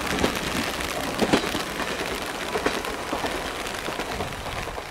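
Steady rain falling, over the low, fading rumble of a departing KiHa 47-based diesel railcar. A couple of sharp knocks stand out about a second in.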